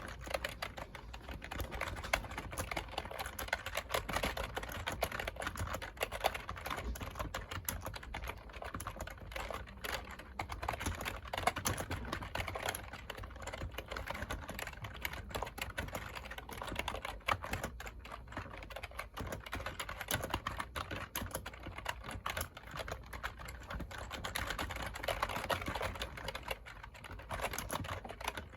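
Computer keyboard being typed on, a fast continuous run of key clicks, many strokes a second without a pause.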